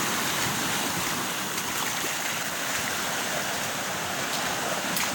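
Small waves breaking and washing over rocks and sand at the water's edge, a steady rush of surf.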